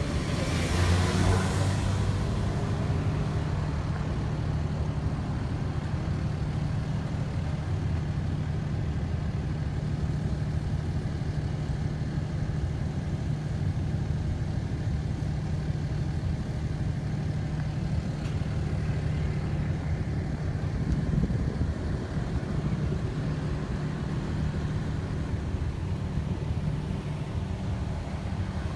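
A vehicle passes on the road about a second in, over a steady low engine hum from a motor vehicle idling nearby.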